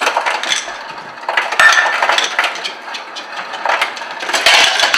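Refrigerator door ice dispenser dispensing ice: a loud, continuous rattling clatter of ice cubes that starts suddenly.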